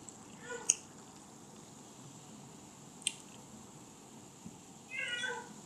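A cat meowing: a faint short meow about half a second in and a longer, louder falling meow near the end, with two sharp clicks in between.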